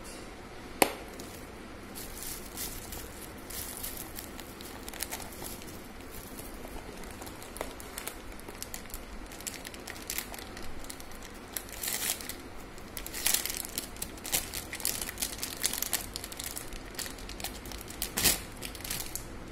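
Plastic bag and paper wrapping crinkling and rustling as packaging is unwrapped by hand, in irregular bursts that grow busier in the second half. A sharp click sounds about a second in.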